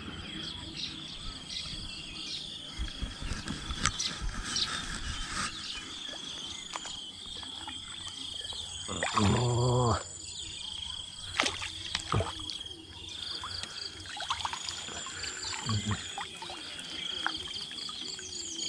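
A steady high-pitched trilling chorus of small calling animals (insects and frogs) with scattered light clicks and chirps. About nine seconds in comes a loud, brief call that has a clear pitch and bends up and down, the loudest thing here.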